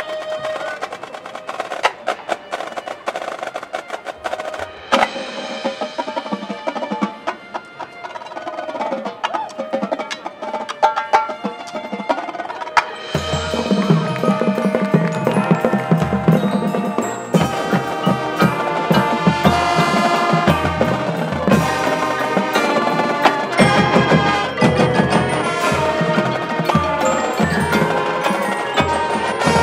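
Marching band show music led by the front ensemble's mallet percussion and wood block, with many light struck notes. About 13 seconds in the music grows louder and fuller as low sustained notes come in beneath it.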